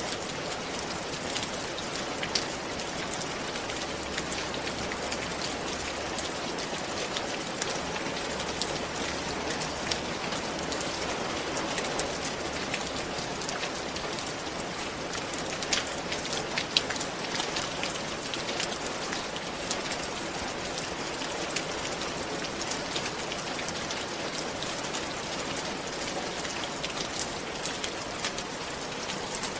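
Steady rain falling on a roof: a dense, even hiss with scattered sharper drop hits.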